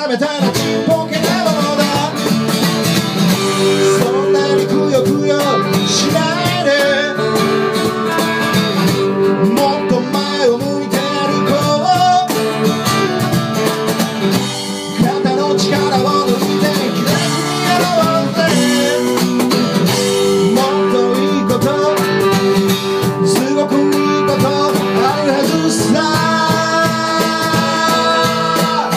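Live acoustic band music: strummed acoustic guitar and hand percussion with a sung vocal line.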